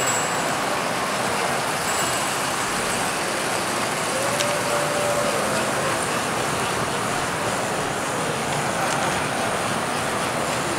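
American Flyer S-gauge model trains running on the layout: a steady whirring noise of their motors and wheels on metal track. A brief faint tone sounds about four seconds in.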